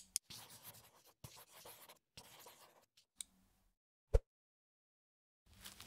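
Pencil scratching on paper in three or four short scribbling strokes, then a single sharp knock about four seconds in.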